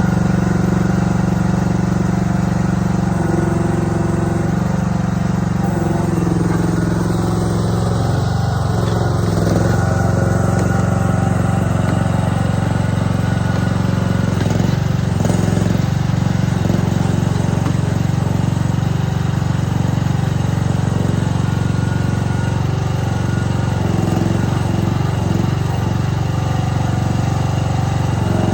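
Mini excavator's small engine running steadily under the operator's hands, its note shifting slightly now and then as the machine works.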